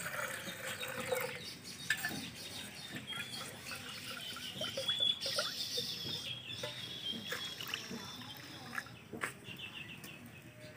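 Small birds chirping again and again in short high calls, with a held high note midway. A few light knocks sound through it.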